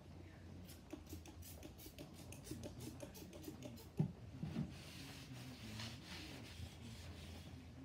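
A trigger spray bottle squirting in a quick run of short hisses, then a sharp knock about four seconds in, then rubbing like a surface being wiped down.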